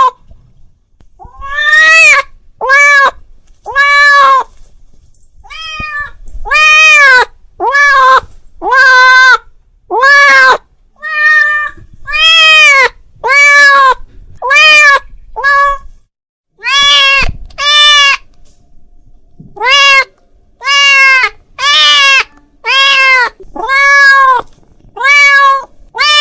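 A cat meowing over and over, calling out to another cat: loud, short meows about one a second, each rising and then falling in pitch, with a short break about halfway through.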